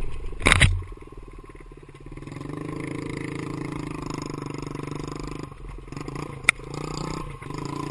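Small off-road motorbike engine under way, with a loud rush of noise about half a second in. The engine drops low for about a second, then picks back up and runs steadily, with a single sharp click a little after six seconds.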